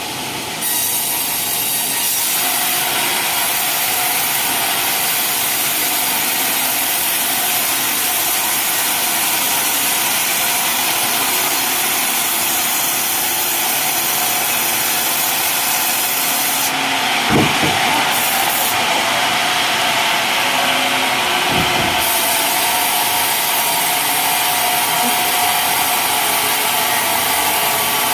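Sawmill blade cutting lengthwise through a coconut palm trunk: a loud, steady sawing noise that comes up about a second in and runs on, with a couple of short knocks in the second half.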